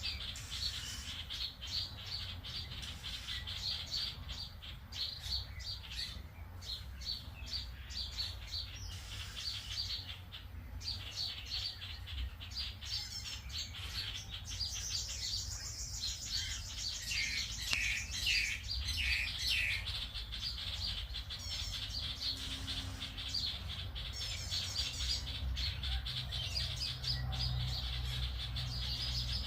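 Small songbirds chirping and twittering in a busy, continuous chorus of quick high notes, with a fast buzzy trill about halfway through.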